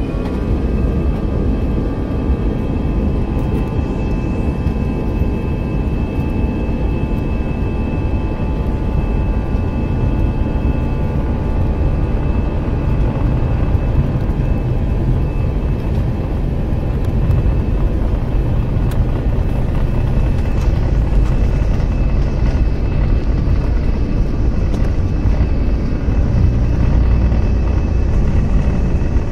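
Jet airliner's turbofan engines at takeoff power, heard from inside the cabin: a steady high whine over a heavy rumble during the takeoff roll. The whine finishes rising right at the start as the engines reach full thrust.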